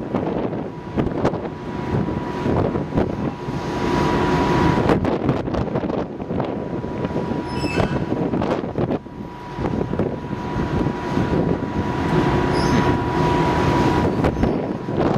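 Car ferry leaving its berth: a steady machinery rumble with a thin whine that swells twice, broken by many irregular metallic clanks and creaks.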